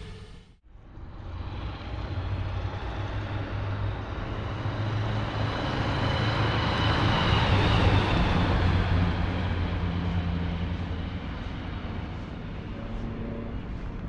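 A 1940 Packard Super 8's straight-eight engine and tyres as the coupe drives past. The sound swells to its loudest about halfway through as the car passes, then fades as it moves away.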